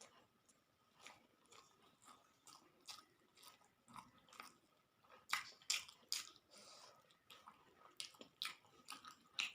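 Close-miked mouth chewing a bite of crispy fried Bombay duck (lote macher jhuri): faint, irregular crunches and wet mouth clicks, loudest a little past the middle.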